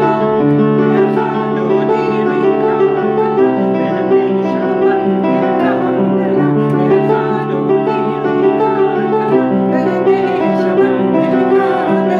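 Upright piano playing chords, with a woman and a man singing a Jewish liturgical hymn in a qawwali-style setting.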